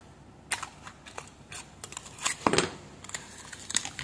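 Aluminium foil tape crinkling and crackling as it is handled: a run of irregular sharp crackles, the loudest about two and a half seconds in.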